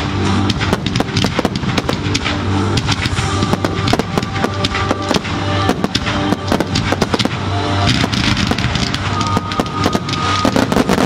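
Fireworks display: aerial shells bursting in rapid, irregular succession, many bangs a second, over music playing throughout.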